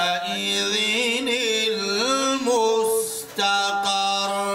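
A man reciting the Quran in the melodic tajweed style, drawing out long held notes with wavering ornaments. A short break a little past three seconds in is followed by one long steady note that ends just before the close.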